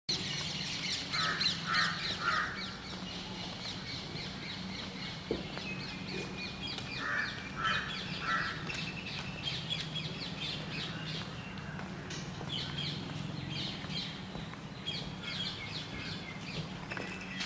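Crows cawing, three calls in a row heard twice, with small birds chirping throughout over a steady low hum.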